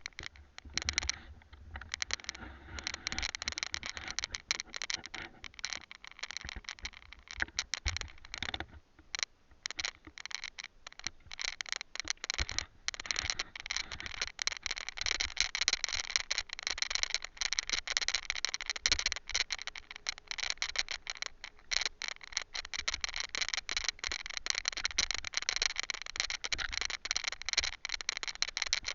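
A loosely mounted camera rattling and clattering nonstop on a bumpy trail ride, a dense run of irregular clicks with occasional low thumps from jolts.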